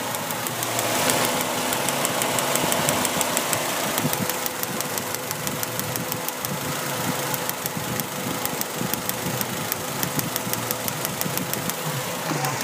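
Mazda Protege four-cylinder engine idling with a rapid, even tapping, a few ticks a second: the tell-tale tap of a misfire on cylinder 1.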